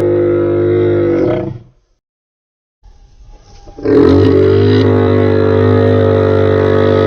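Dinosaur roar sound effects: a long steady roar fades out about a second and a half in, and after a brief silence a second long, loud roar starts about four seconds in.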